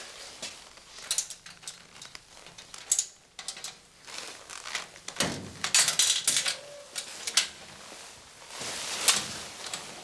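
Metal luggage locker being worked: scattered clicks and clatter from its lock panel, then the locker door is opened and things are rummaged inside, with rustling from a plastic raincoat.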